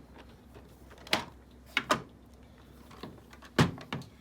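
Hard plastic graded-coin slabs clicking and clacking as they are handled and set down: a handful of sharp clicks, a quick pair in the middle and the loudest one near the end.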